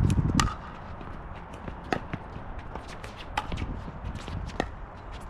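Pickleball rally: a hard plastic pickleball struck back and forth by paddles, giving four sharp, ringing pocks about a second and a half apart. A low rumble comes briefly at the very start.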